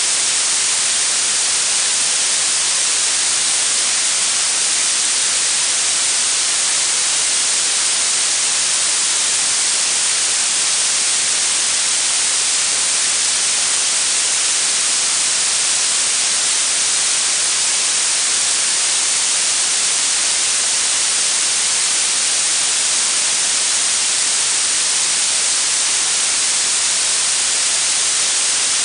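Blue noise: a steady, even hiss with most of its energy in the high pitches, growing stronger the higher it goes.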